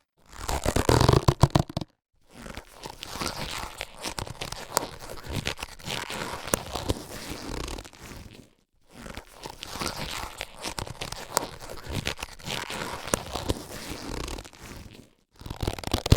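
Latex surgical gloves being handled and rubbed: rubbery rustling with many small crackles. It comes in three spells separated by short pauses, the first briefer and louder.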